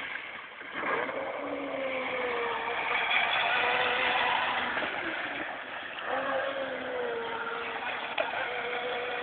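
Electric RC monohull racing boat, a 12-cell pack driving a 700-size BB motor, running across the water: a high motor whine whose pitch wavers and bends as the boat speeds and turns, over a hiss of spray. It dips briefly about half a second in and is loudest around the middle.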